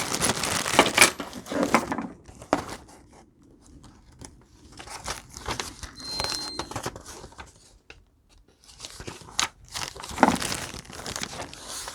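Plastic packaging crinkling and tearing, with scattered clicks and light knocks of small parts being handled. It is busiest at the start and again near the end, with only a few faint clicks in between.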